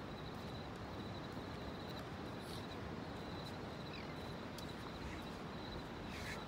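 Outdoor dawn ambience: a steady low rush of background noise, with a thin, high, pulsing insect trill and a few short falling bird chirps.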